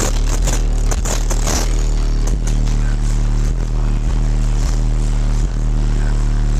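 Four Fi SP4 18-inch subwoofers in a fourth-order enclosure play a very loud, steady deep bass line at competition level, metered at 134.6 dB. There is crackling and rattling over it in the first couple of seconds.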